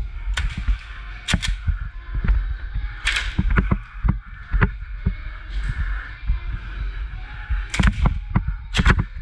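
Footsteps and gear rustle on a wooden floor, with sharp cracks of airsoft gunfire scattered throughout, several in quick pairs.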